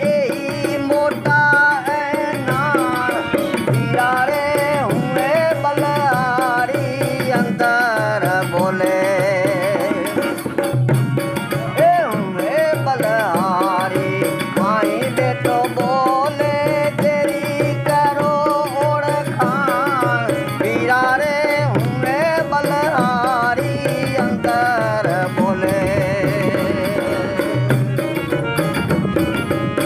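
Indian folk music: a hand-drum rhythm under a steady drone, with a wavering, ornamented melodic line above.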